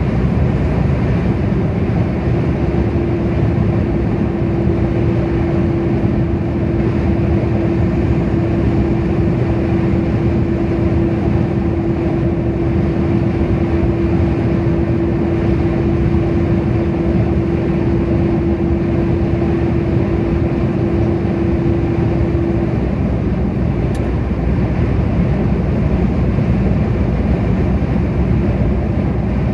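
Steady road and engine noise of a vehicle cruising at motorway speed, heard from inside the vehicle. A steady humming tone joins in about two seconds in and cuts off suddenly about twenty seconds later, and there is one brief click near the end.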